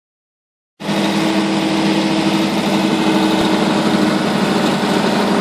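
An engine running steadily with an even hum, cutting in suddenly just under a second in.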